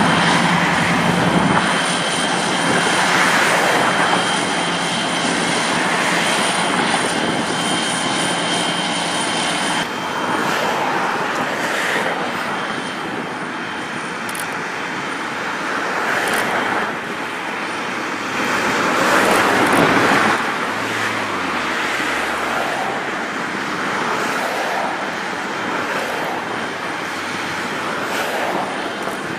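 Diesel yard locomotives running as they pull a string of freight cars along the yard tracks. A steady low engine hum stops abruptly about a third of the way in, over continuous outdoor noise that swells and fades.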